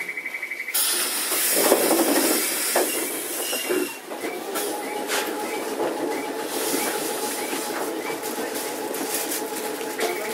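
Randen Mobo 21 retro tram, heard from on board: a rapid beeping at the start, then a loud hiss about a second in, then the car's running noise with a steady hum. The rapid beeping comes again near the end.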